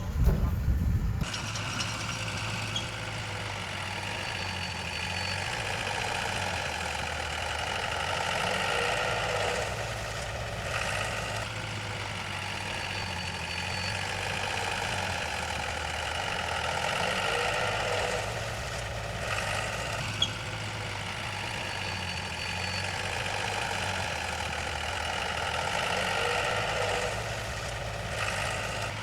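Heavy earth-moving machinery engine running steadily, its noise swelling and easing about every nine seconds as the machine works, with a few short clanks.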